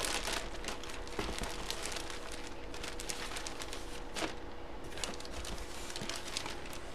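Thin clear plastic bag around a jersey crinkling as it is handled, a quick scatter of crackles.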